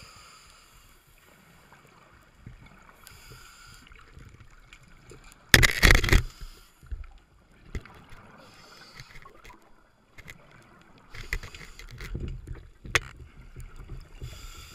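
Muffled underwater sound through a camera housing: water noise and short hissy bubbling patches. About five and a half seconds in there is one loud, sudden burst lasting under a second, and a cluster of knocks and rumbles comes near the end.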